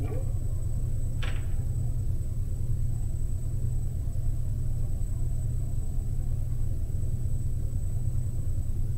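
Steady low rumbling hum with a faint constant high-pitched whine over it. A brief scratchy rustle comes about a second in.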